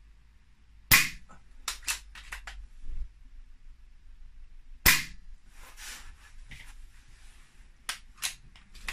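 BSA Ultra SE pre-charged air rifle firing two .177 pellet shots into a thick pine board, about four seconds apart, each a sharp crack followed by a few lighter clicks.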